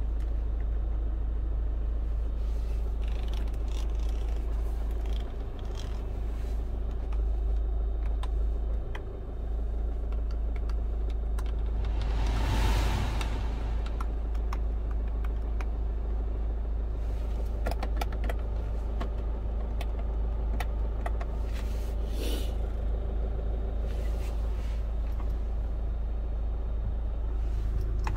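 Hyundai Tucson 2.0-litre turbo-diesel idling, heard from inside the cabin as a steady low rumble, with light clicks of dashboard buttons being pressed. A brief rush of noise comes about halfway through.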